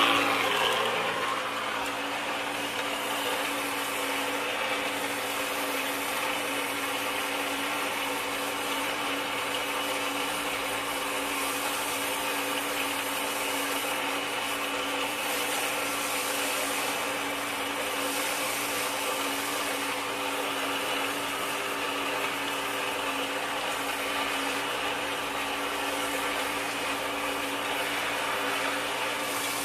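Tap water running steadily onto a pot of wet silica-sand potting mix and splashing into a plastic tub, rinsing the medium. A steady hum sits beneath the splashing.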